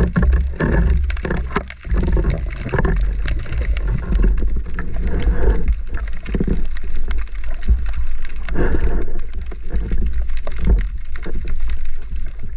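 Water sloshing and bubbling around an underwater camera housing just below the surface, with a steady low rumble and many small crackling clicks.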